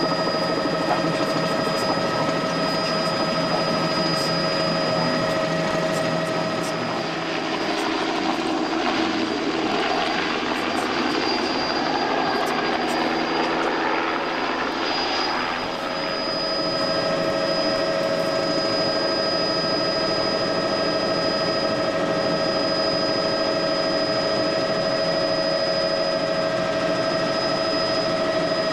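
Small aircraft's engine running steadily at a constant pitch. From about seven to sixteen seconds in, the steady tone weakens and a rougher rushing noise takes over, then the even tone returns.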